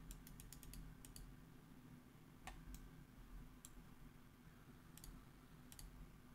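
Computer mouse button clicks: a quick run of about eight clicks in the first second, then single clicks every second or so and a close pair near the end, over faint low room hum.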